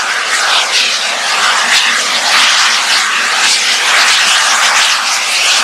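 Peppercorn A1 Pacific steam locomotive No. 60163 Tornado working hard as it hauls its train: its three-cylinder exhaust makes a loud, steady roar.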